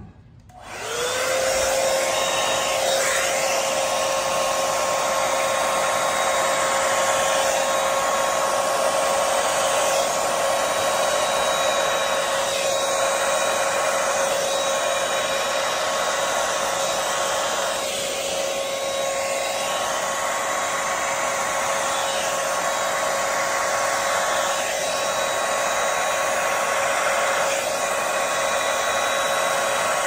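Hand-held hair dryer with a flat-face attachment switched on about half a second in, its motor spinning up to a steady whine over a loud rush of air as it blows wet acrylic pour paint across the surface. The air sound dips briefly a few times as the dryer is moved.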